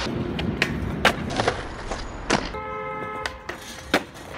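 Skateboard wheels rolling on pavement, with several sharp clacks of the board striking the ground. A steady pitched tone sounds for just under a second a little past the middle.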